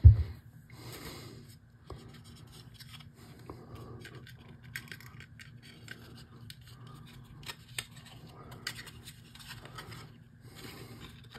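Handling noise from a small 3D-printed PLA plastic part being picked up and turned over by hand on a paper-covered work surface: faint scrapes, rubs and light clicks, with a louder thump right at the start. A faint steady low hum runs underneath.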